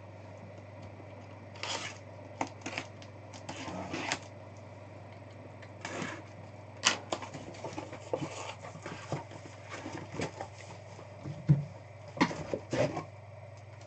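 Irregular taps, clicks and rustles of trading card boxes, packaging and papers being handled on a table, over a steady low hum.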